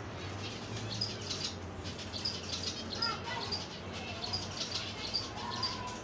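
Finches chirping: short, high chirps in quick clusters, with a few lower call notes after about three seconds.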